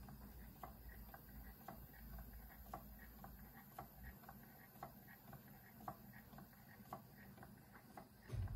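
Stuart Turner "Williamson" model vertical engine running slowly, giving a faint, even ticking about two to three times a second. A low rumble comes in suddenly near the end.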